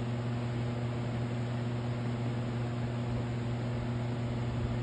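Steady electrical hum with an even hiss behind it, unchanging throughout; no distinct handling knocks or clicks stand out.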